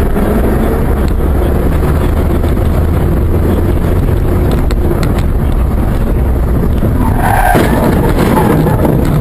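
Car on the move: a loud, steady low rumble of engine and road noise, with a brief higher-pitched squeal about seven seconds in, typical of skidding tyres.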